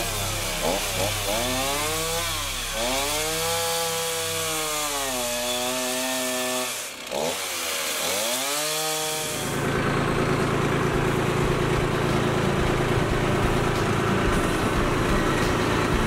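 Two-stroke Stihl chainsaw revving up and down several times as it cuts into a fir trunk, with a sharp drop in revs about seven seconds in. About nine and a half seconds in, the sweeping saw gives way to a steady, slightly louder engine running at an even pitch.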